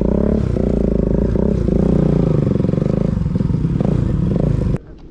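Motorcycle engine running loud through an aftermarket Akrapovic full-system exhaust, its pitch rising and falling a little with the throttle. It stops abruptly about a second before the end.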